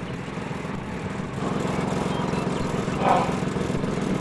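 A steady low rumbling noise with a fast flutter, a little louder from about a second and a half in, with a short higher-pitched sound about three seconds in.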